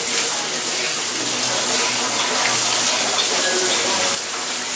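Water running from a salon shampoo-bowl sprayer onto hair being rinsed at a backwash sink, a steady hiss that eases slightly near the end.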